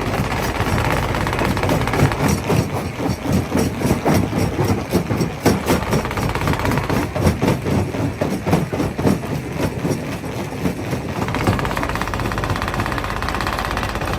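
Rock crusher running with a steady machine drone, and a spell of rapid, irregular knocking and cracking as rocks are broken in it, from about two seconds in until near the end.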